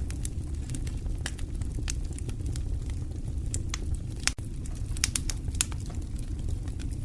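Wood fire crackling, with sharp, irregular pops and snaps over a steady low rumble.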